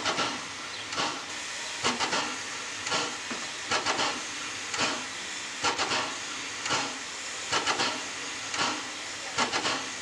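Ol49 steam locomotive standing in steam, with a steady hiss and its steam-driven air pump beating in a regular rhythm, a cluster of quick puffs about once a second.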